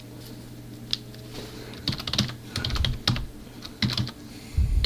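Computer keyboard being typed on, keys clicking in short irregular clusters of a few strokes with pauses between, over a faint low steady hum.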